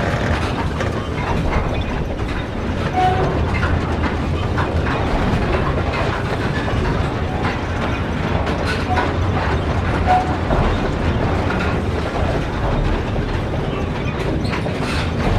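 Train running along the rails: a steady rumble with wheels clattering over the track, and a few brief high tones.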